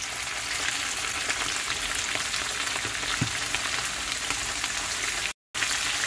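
Kingfish steaks frying in hot oil just after going into the pan: a steady sizzling hiss full of small crackles and pops. The sound cuts out for a moment about five seconds in.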